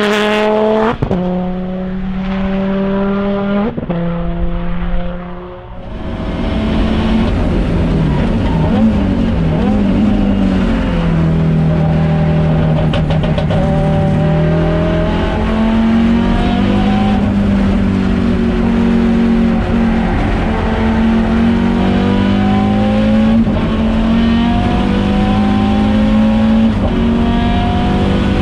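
Audi S1 Group B rally car's turbocharged five-cylinder engine pulling hard through several quick upshifts, the pitch climbing and dropping back at each shift. About five seconds in it dips briefly, then runs on at high revs, the pitch rising and falling.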